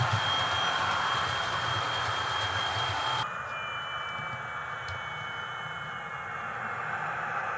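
Model InterCity 125 HST power car's DCC sound decoder playing a simulated diesel engine sound from the loco's speaker as it runs, a steady hiss with a high steady whistle. About three seconds in it drops sharply in level, leaving a softer, slightly falling whine.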